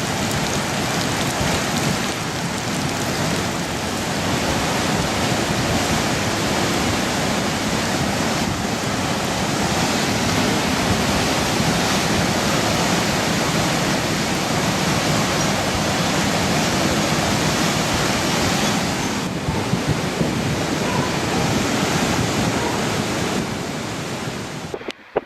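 Floodwater rushing, a loud steady wash of noise that cuts off abruptly near the end.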